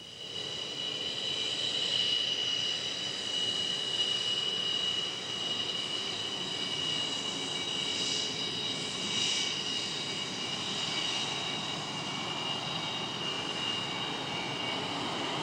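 Jet fighter engines running: a steady high whine from the turbofans over a broad rushing noise, with no rise or fall in pitch, starting suddenly. Plausibly the MiG-29's twin turbofans.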